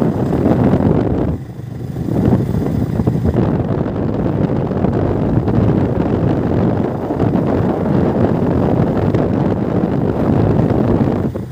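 Wind buffeting the microphone: a loud, rumbling rush that drops briefly about a second and a half in.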